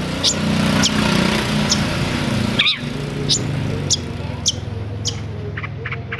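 Long-tailed shrike (cendet) giving a series of sharp, high downward-sweeping calls, about one every half second, with a different gliding call near the middle and quicker, lower notes near the end. A steady low motor hum runs underneath.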